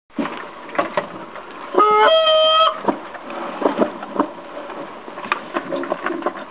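Goose call blown by a hunter: one loud honk that breaks from a low note up to a higher one about two seconds in, then a few short, quieter notes.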